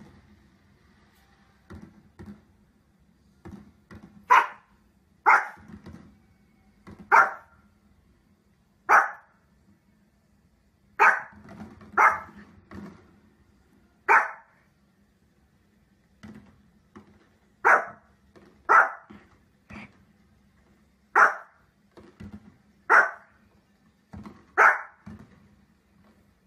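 Small spitz-type dog barking: about a dozen single, sharp barks one to two seconds apart, with softer woofs between them.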